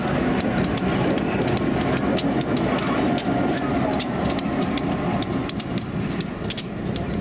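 EMD SD9 diesel locomotive with a 16-cylinder 567 engine running as it passes close by, giving a steady rumble. Its train rattles and clicks sharply over the rails.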